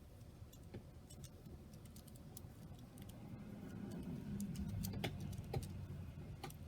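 Faint, irregular clicks of a miniature Rubik's cube's plastic layers being turned by hand.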